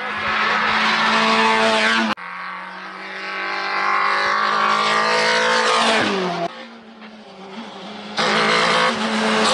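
Rally car engines at full throttle on a tarmac stage, revving hard through the gears. One car's engine note drops sharply as it passes about six seconds in. The sound jumps abruptly between cars at edits about two seconds in, six and a half seconds in and eight seconds in.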